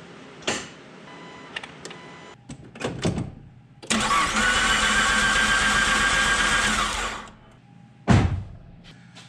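Car starter motor cranking the engine for about three seconds without it firing, to build oil and fuel pressure after the oil pan and lines were refitted. A few clicks and knocks come before it, and a thump follows near the end.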